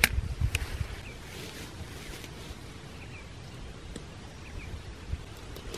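Two sharp clicks from aluminium tent poles being handled near the start, then quiet open-field ambience with a few faint short chirps and a soft low thump near the end.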